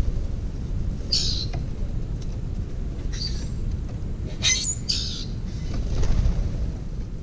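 Brewer's blackbirds giving short, high calls four times, one with a quick rising-and-falling sweep, over a low steady rumble.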